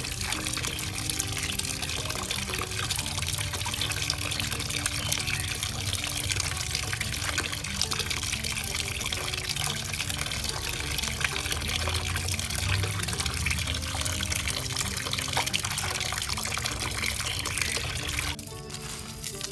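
Water running and splashing as vegetables are rinsed under it; it stops abruptly near the end. Background music plays underneath.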